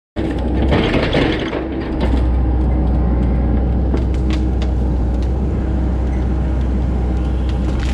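Heavy-equipment engine running steadily with a low rumble, with a few light mechanical knocks. It starts abruptly just after the beginning.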